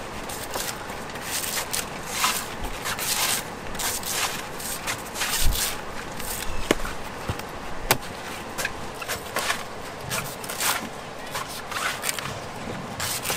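Knife work on a coconut: irregular sharp knocks and rasping scrapes as the blade cuts and shaves the husk.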